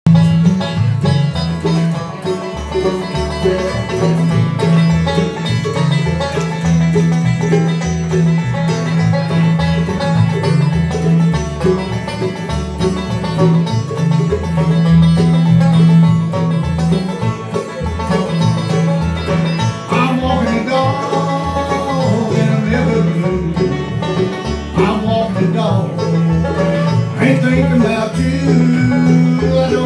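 Live bluegrass band playing: banjo, mandolin, acoustic guitar and upright bass, with the bass line holding steady underneath. A man's voice comes in singing about two-thirds of the way through.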